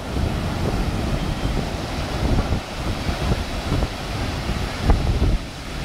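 Strong wind buffeting the microphone in uneven low gusts, over the hiss of surf breaking on the beach; the hardest gust comes about five seconds in.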